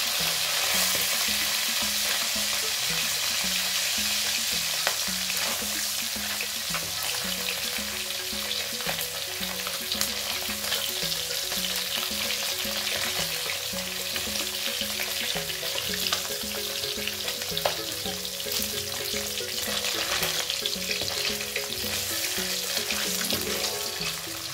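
Pieces of bhangon fish sizzling steadily as they fry in hot oil in a wok, turned with a metal spatula that clicks against the pan now and then.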